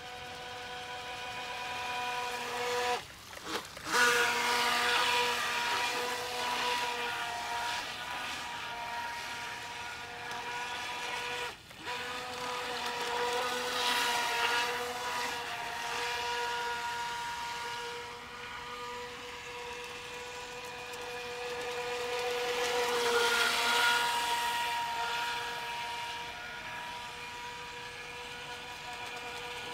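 Radio-controlled model jet ski's brushless 380 electric motor running on the water: a steady whine over a hiss of water, swelling and fading as the boat's distance changes. It drops out sharply and briefly twice.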